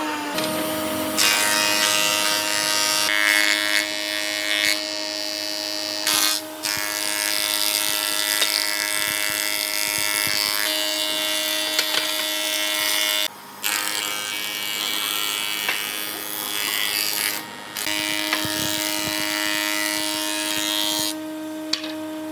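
Electric power tool working wood: a steady motor whine under a rough cutting or sanding noise, broken off briefly three times.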